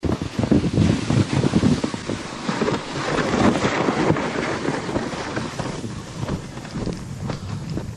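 Wind buffeting the microphone: a loud, uneven rushing that gusts hardest in the first few seconds, then eases slightly, with scattered small knocks.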